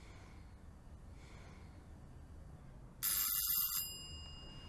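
Doorbell ringing once, a short bright ring of under a second about three seconds in, its tones ringing on briefly as they fade.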